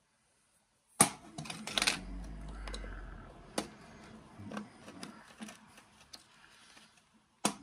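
Hands handling the saw's small laser-sight battery housing and its AAA batteries: irregular light clicks and rattles starting about a second in, with two sharper clicks near the end.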